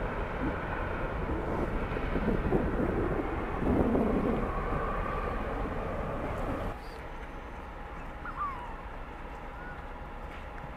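Harbour ambience: a low rumble from a large passing ferry's engines under a steady wash of noise. About seven seconds in it gives way to a quieter hum, with one short bird call about a second later.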